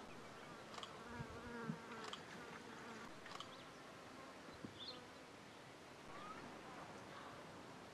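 Faint outdoor ambience with an insect buzzing, wavering in pitch during the first couple of seconds, and a few short high chirps.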